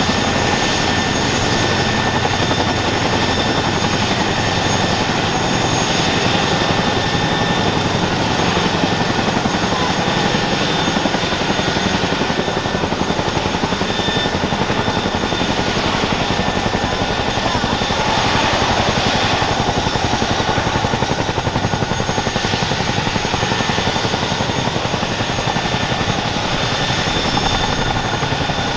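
Boeing CH-47F Chinook helicopter running steadily, its Honeywell T55 turboshaft engines giving a steady high whine over the loud rotor noise.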